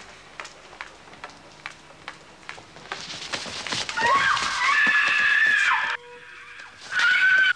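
Hard-soled footsteps at a steady walk, about two and a half steps a second. About four seconds in a woman screams loudly in fright for two seconds, then screams again briefly near the end.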